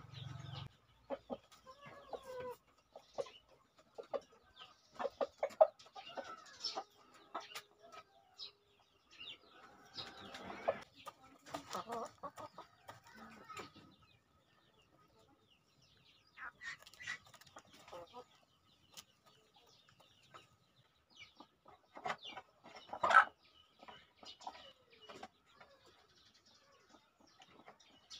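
Chickens clucking while they peck at feed in a plastic feeder tray. Their calls are mixed with many short, sharp clicks of beaks striking the plastic.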